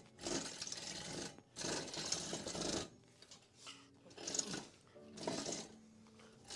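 Rustling and rubbing handling noise in about five bursts, the longest two in the first three seconds, as an item is pulled away and moved.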